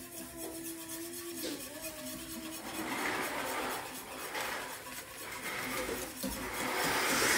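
Mashed-potato flakes being stirred into a saucepan of water: a utensil scraping and swishing in the pot while the foil packet crinkles, in a few swells of rasping noise.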